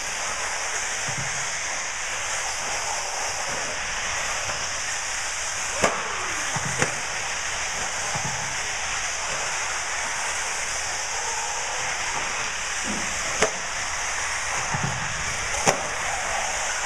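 1/8-scale radio-controlled off-road buggies racing on an indoor dirt track: a steady hiss, with a few sharp knocks about six, seven, thirteen and fifteen seconds in.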